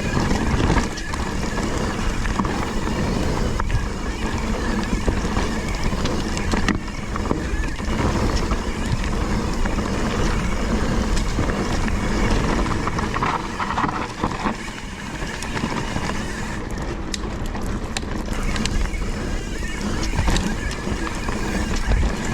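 Mountain bike ride heard through a bike-mounted or body-mounted action camera: wind rushing over the microphone and tyres rolling on a rough dirt trail, with scattered clicks and rattles from the bike.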